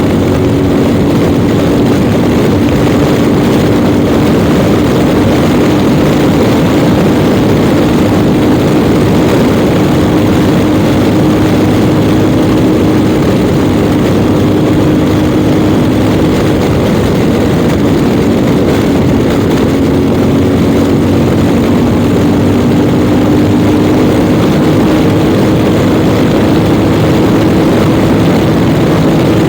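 Yamaha Ténéré 700 World Raid's parallel-twin engine running at a steady cruising speed, its note holding nearly constant, under heavy wind rush over the microphone.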